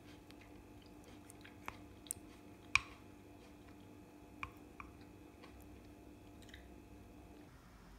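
Wooden spoon stirring yogurt and green grapes in a ceramic mug: soft squelching with several sharp taps and clicks of the spoon against the mug, the loudest a little under three seconds in. A faint steady hum underneath stops shortly before the end.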